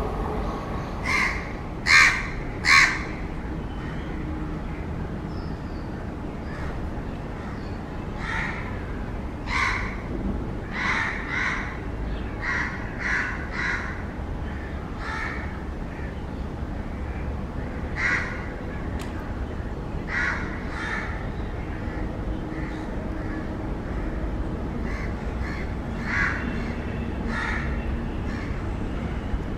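A bird giving short harsh calls, often two or three in quick succession, a dozen or more times, the loudest pair about two seconds in, over a steady low rumble.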